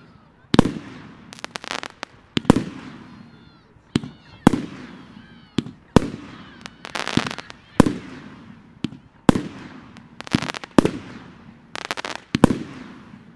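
Hello Fireworks 'May-Day' fireworks cake firing shot after shot: sharp bangs about one to two a second, some coming in quick clusters of pops, each dying away with a short echo.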